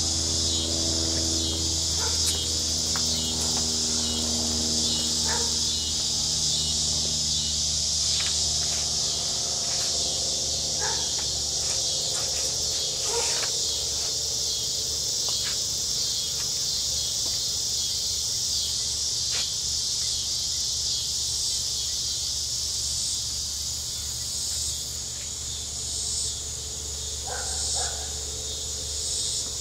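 Steady chorus of crickets and other night insects, a dense high-pitched trilling that pulses slightly, over a low steady hum.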